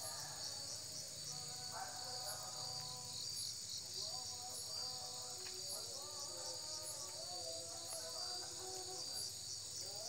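Night chorus of crickets and other insects: a steady high-pitched chirring with a regular pulse. Faint music of held, stepping notes plays underneath.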